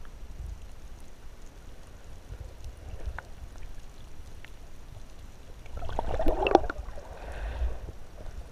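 Shallow sea water heard through a submerged GoPro housing: a steady, muffled low rumble of water movement with scattered faint clicks, and a louder burst of crackling and bubbling about six seconds in.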